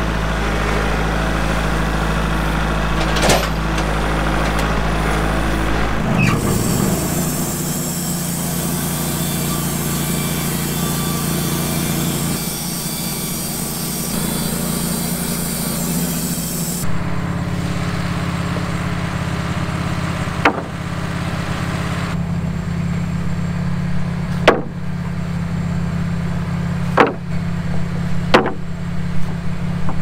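An engine running steadily throughout. From about six seconds in until about seventeen, a Wood-Mizer LT15 band sawmill cuts through a pine log, adding a hissing cutting noise over the engine. In the last part, four sharp wooden clacks as fresh-cut boards are stacked.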